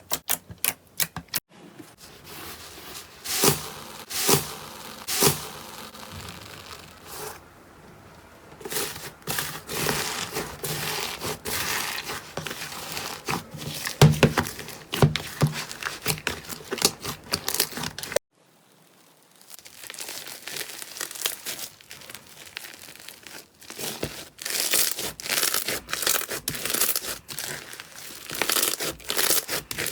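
Slime being squeezed and stretched by hand: a steady run of crackling, popping clicks. The sound drops out briefly about two-thirds of the way through, then the crackling picks up again.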